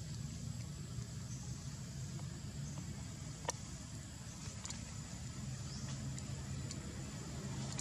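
Outdoor background sound: a steady low rumble like a distant engine, with a thin, steady high whine and a few faint clicks, the sharpest about three and a half seconds in.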